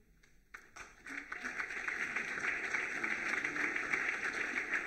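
Audience applauding: after a brief hush and a lone clap about half a second in, the applause builds within a second and then holds steady.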